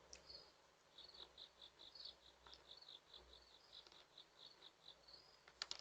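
Near silence with crickets chirping faintly, a short chirp about three times a second, stopping about four seconds in. A few faint clicks near the end.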